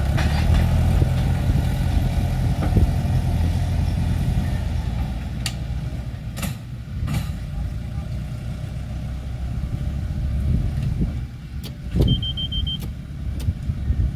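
Farm tractor engine running low as it pulls a trailer loaded with square hay bales away, growing fainter. A few sharp clicks and a short high beep come near the end.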